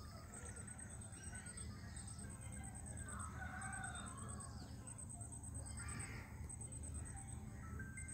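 A rooster crowing once, an arching call about three seconds in, over a steady high-pitched pulsing chirr and a low rumble.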